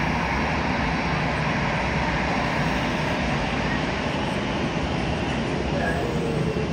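Steady aircraft engine noise from an airliner on or near the runway, a dense, even sound that neither rises nor falls.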